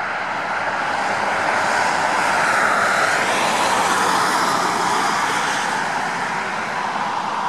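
Highway traffic passing close by: tyre and engine noise of a passing vehicle, a steady rush that swells to a peak about three seconds in and eases off.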